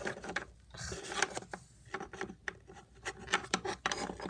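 Small plastic toy figures and props being handled and moved on a hard surface: scattered clicks and taps, with a patch of rubbing about a second in.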